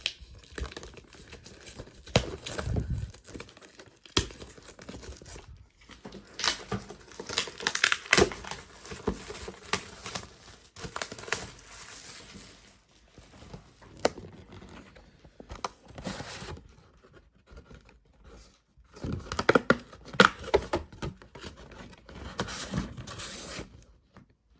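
Plastic wrapping being torn and crinkled off a Yu-Gi-Oh! booster display box, in irregular bursts of tearing and crackling, with the loudest stretches about a third of the way in and again near 20 seconds.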